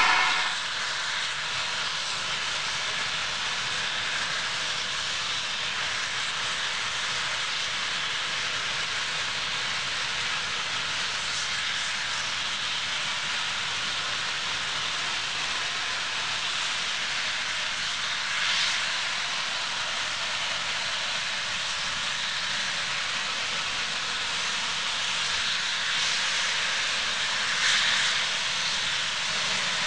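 Steam locomotive venting steam with a steady hiss, swelling briefly about two-thirds of the way through and again near the end.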